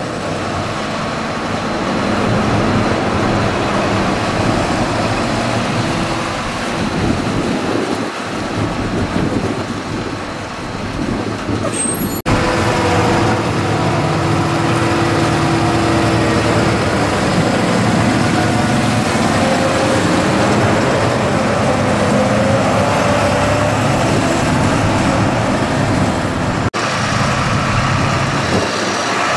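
Diesel engines of large farm tractors running and moving at a silage clamp, among them a Fendt 936 Vario towing a loaded Joskin Drakkar silage trailer. The sound is steady and changes abruptly twice.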